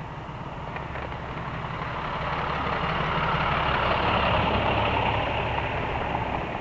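Box truck's engine running at low speed close by, a steady low hum, with rushing traffic noise that swells to a peak about halfway through and then eases off.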